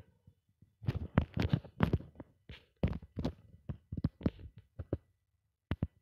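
Irregular soft thumps and taps from handling the recording phone, a finger on its screen as the page is scrolled.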